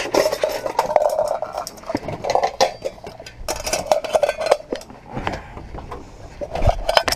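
Clinks, knocks and rattles of small metal camp cookware being handled, with rustling as the camera is moved about.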